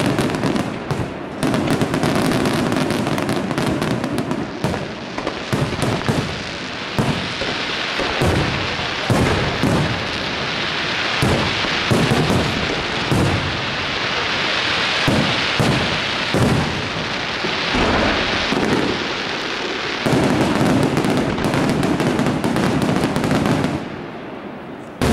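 Fireworks display of aerial shells bursting in rapid succession, dense bangs over a steady crackling hiss. The barrage dips in loudness near the end.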